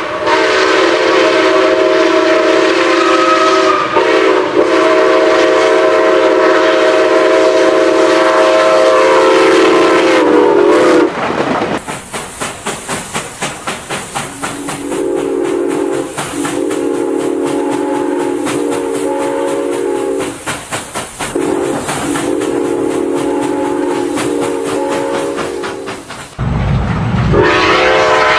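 Six-chime steam locomotive whistle blowing a chord: one long blast, then a few seconds of rhythmic locomotive exhaust chuffs, then two more long blasts and the start of another near the end.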